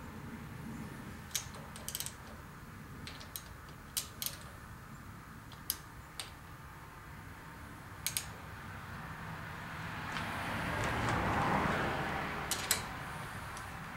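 Sparse, light metallic clicks and ticks of a wrench working a rocker-arm adjusting nut on a Chevy 350 small-block while the valve lash is being set. About ten seconds in, a softer rushing sound swells and fades.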